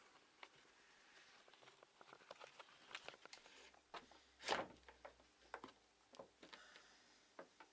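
Faint handling sounds of a leather revolver holster: scattered small clicks and taps, with one brief louder rub or scrape about four and a half seconds in.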